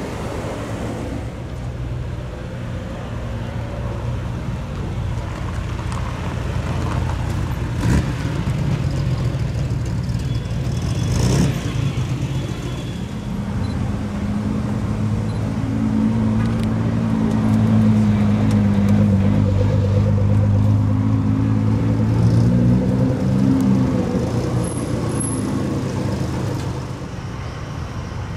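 Supercar engines running at low speed as the cars pull out one after another. A deeper, steady engine note grows louder about halfway through and fades again near the end.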